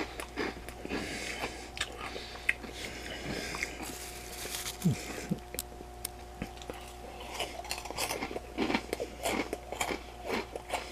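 A person chewing a mouthful of crunchy puffed cheese snacks (Turkey Creek Blazing Hot crunchy cheese curls), with irregular crackly crunches all through.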